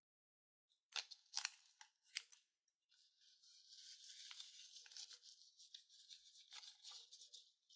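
Small embroidery scissors snipping through a rubber balloon, several quick cuts about a second in. A faint, steady crackling hiss follows for several seconds.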